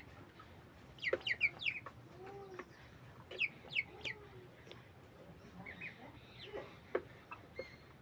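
Broiler chickens calling: quick runs of short, high peeping calls about a second in and again around three and a half seconds, with a few lower clucks and scattered single calls in between.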